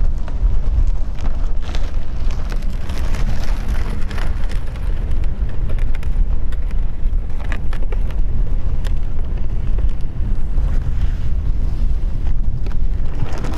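Wind buffeting the microphone: a loud, steady low rumble with scattered crackles that cuts off suddenly at the end.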